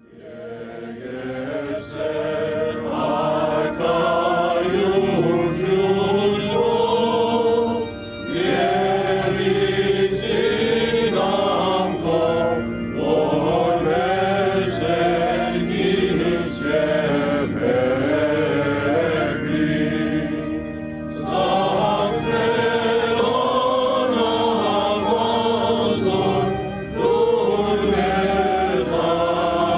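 Liturgical chant sung by voices, fading in over the first two seconds and going on in long held phrases with brief pauses between them.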